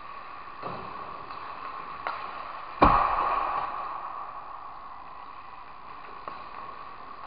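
Ice hockey pucks and sticks clacking in an indoor rink, with light clicks and one loud sharp crack of a puck about three seconds in that echoes off the arena. A steady rink hum underlies it.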